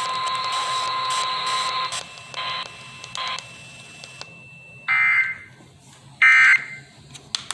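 Emergency Alert System audio on a broadcast receiver: a steady alert tone near 1 kHz stops about two seconds in, and near the end two short, loud bursts of EAS end-of-message data tones sound about a second apart, closing the national test.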